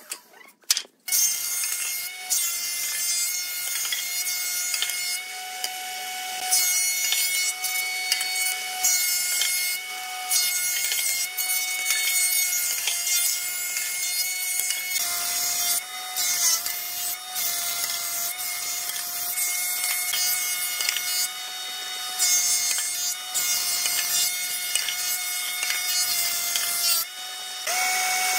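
Combination woodworking machine running with a steady high whine while boards are fed through its planer, the cutter shaving the wood with a rough hissing noise. A few knocks come in the first second, and the sound dips briefly near the end before the machine picks up again.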